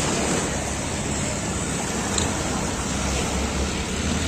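Boat engine running steadily with a low hum, mixed with wind and rushing water.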